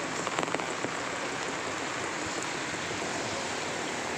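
Rain falling steadily, an even hiss, with a few light taps about half a second in.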